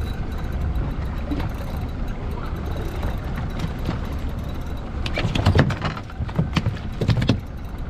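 Steady low rumble of a small fishing boat at sea, engine and water noise together, with a cluster of louder knocks and clatters about five to seven seconds in.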